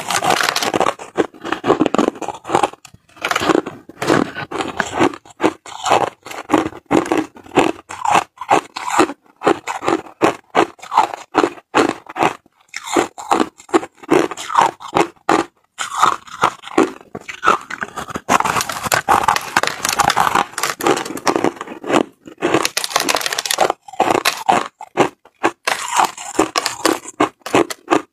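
Crunching of packed crushed ice being bitten off a large lump and chewed, in dense runs of sharp crunches with short pauses between bites.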